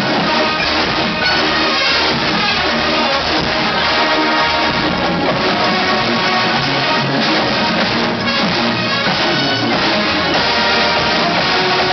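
Marching band playing a classic rock arrangement with full brass and drums.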